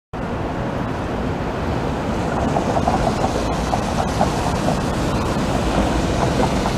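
Articulated TTC streetcar rolling slowly through a curved track junction on wet rails: a steady rumble and hiss with a few short squeaks from the wheels on the curve, most of them near the middle.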